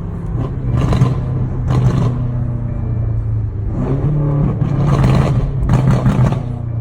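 BMW M5 Competition's twin-turbo V8 running under way, with about five short, loud bursts of exhaust crackle and pops over a steady engine drone.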